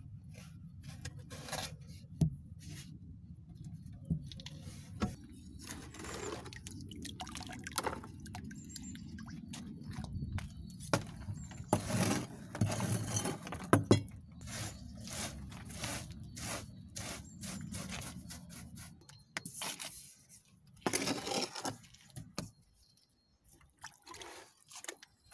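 Brush sweeping and scraping loose ash, charcoal, clay, scale and dirt over wooden boards, in irregular short strokes, with longer, louder strokes about halfway through and again near the end, over a low rumble for most of the time.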